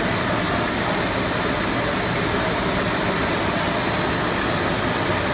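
Cast film extrusion line running: a steady machine noise at an even level, with faint thin high tones through it.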